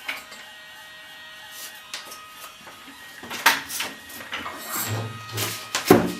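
3D printing pen's small filament-feed motor running with a steady whine, with sharp handling knocks about three and a half seconds in and again near the end, the loudest sounds.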